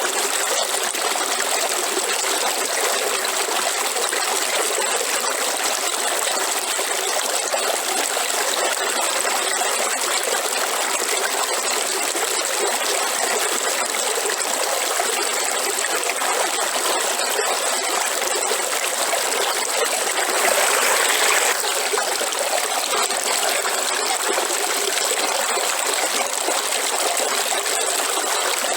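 River water flowing steadily with a continuous trickling, briefly swelling louder about two-thirds of the way through.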